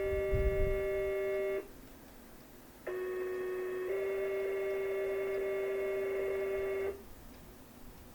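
Two-tone sequential fire pager test tones. A steady tone ends about a second and a half in. After a short pause a new page starts: a tone of about one second steps straight into a longer tone of about three seconds.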